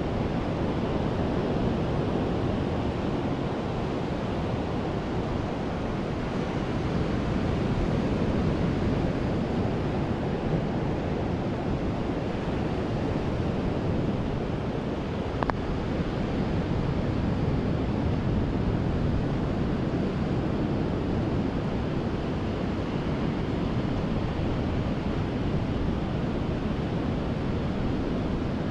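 Ocean surf washing steadily onto a beach, with wind rumbling on the microphone. A single brief tick a little past halfway.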